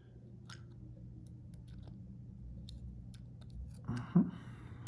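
Faint small clicks and ticks of tiny brass lock pins and tools being handled while pins are loaded back into a deadbolt lock cylinder, over a steady low hum. A short, louder noise comes about four seconds in.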